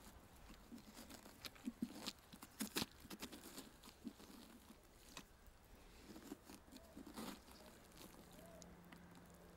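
Faint wet scraping and crunching of a serrated pumpkin gutter working inside a pumpkin, tearing out strings and seeds, with a few sharper clicks and knocks about two to three seconds in.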